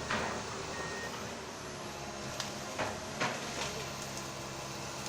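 Komatsu excavator's diesel engine running steadily, with several sharp cracks and knocks, one at the start and a cluster about two and a half to three and a half seconds in.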